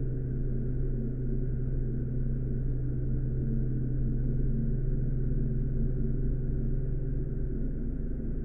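A steady low droning hum of several held low tones, unchanging throughout.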